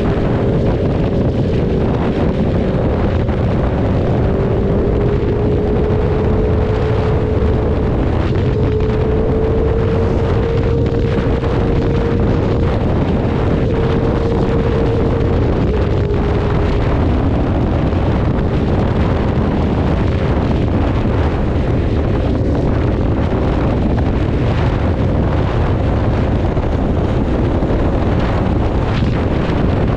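Motorcycle engine running at a steady cruise, its note drifting slightly up and down, under heavy wind noise on the microphone.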